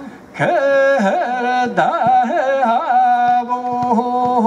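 A male olonkho storyteller singing the Yakut epic unaccompanied. After a quick breath at the start, he holds a long sung note, broken by quick repeated dips in pitch.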